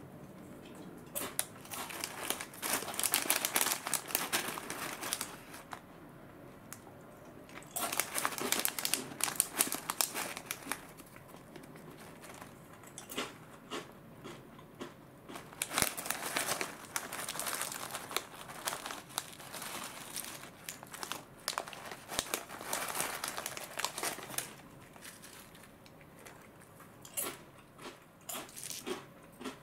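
Foil-lined snack pouch crinkling as it is handled, in four bursts a few seconds long with quieter gaps between.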